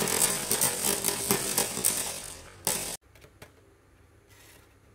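Many marbles rolling and clattering down a marble run, a dense rattle of rapid clicks that thins out, then one short loud clatter. About three seconds in it cuts off suddenly, leaving only a few faint clicks.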